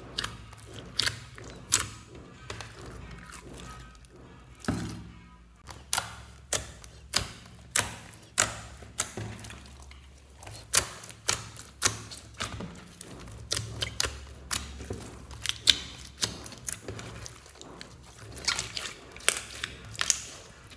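Glittery slime squeezed, kneaded and poked by hand, making a run of sharp wet pops and clicks, about one or two a second.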